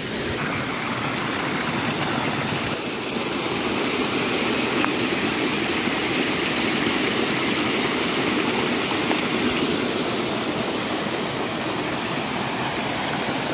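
Rushing water of a small hillside stream swollen by heavy overnight rain, cascading over rocks in short falls. A steady rushing noise that gets a little louder about three seconds in.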